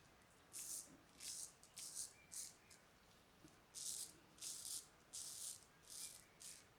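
Filarmonica 4/8 straight razor scraping through lathered stubble in short strokes. There are about ten strokes in two runs, with a pause of about a second near the middle.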